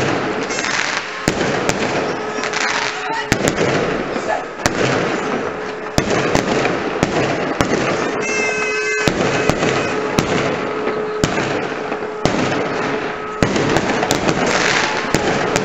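Many fireworks going off at once: sharp bangs of bursting shells, irregular and frequent, over a continuous crackle. A brief high whistling tone sounds about eight seconds in.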